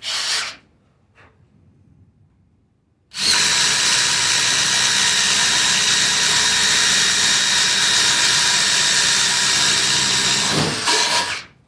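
Ridgid brushless 1/4-inch impact driver running loud and steady for about seven seconds, hammering a 1-inch self-feeding spade bit through a redwood 4x4. It starts about three seconds in and stops near the end, and there is a short loud noise right at the start.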